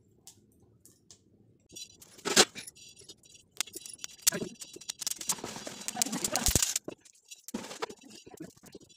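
Hemp seeds crackling and rattling as they are stirred by hand on a hot griddle over a wood fire. Scattered sharp clicks, with a denser run of crackling from about five to seven seconds in.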